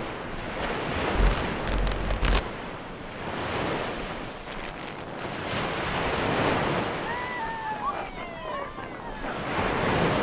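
Ocean surf washing onto a beach, the noise swelling and easing every few seconds, with wind on the microphone and a brief loud buffet about a second in. A few short falling whistles come near the end.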